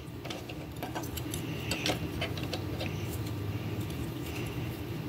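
Irregular light clicks and taps of GraviTrax Helix plastic track pieces being handled and fitted together.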